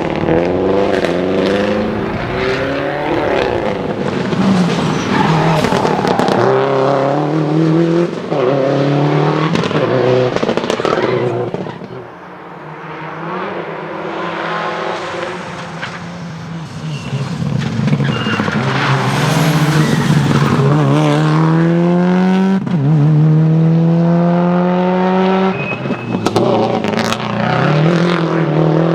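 Subaru Impreza rally cars' turbocharged flat-four engines revving hard at full throttle as they pass on a stage, the pitch climbing and dropping sharply at each upshift. A brief lull comes about twelve seconds in, then another long pull through the gears.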